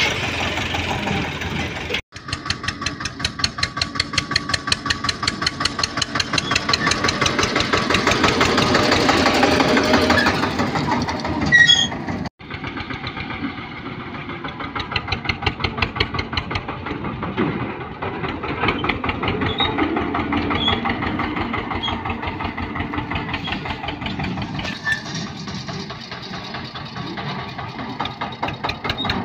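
Eicher 242 tractor's diesel engine running with a steady, rapid chugging beat while it pulls a trolley along a dirt track. It grows louder for a few seconds around the middle, and the sound cuts out briefly twice.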